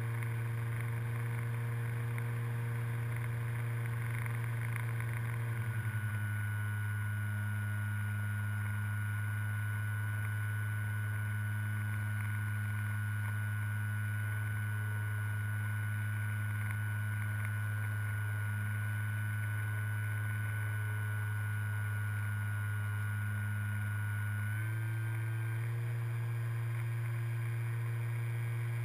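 Onboard sound of a Multiplex Mentor RC airplane's electric motor and propeller, a steady droning hum in flight. Its tone shifts slightly about six seconds in and again near the end as the throttle setting changes.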